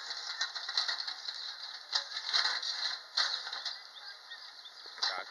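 JCB 3DX backhoe loader pushing loose stones and soil with its front bucket: a noisy, clattering scrape with irregular louder surges.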